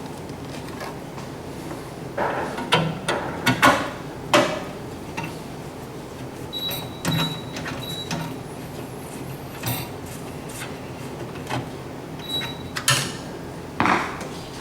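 Scattered clicks, knocks and rattles of metal parts being handled inside a GE microwave as a replacement magnetron is fitted, in two clusters, with a few short high squeaks in between.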